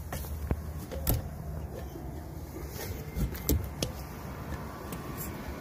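Irregular knocks and footfalls on the rungs of a metal ladder being climbed up the back of a motorhome. Beneath them, the steady low hum of the rooftop air conditioner, its compressor running.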